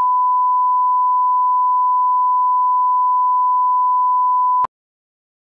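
Broadcast bars-and-tone test tone: a steady, pure, unchanging beep used as a line-up reference signal, cutting off suddenly with a click about four and a half seconds in.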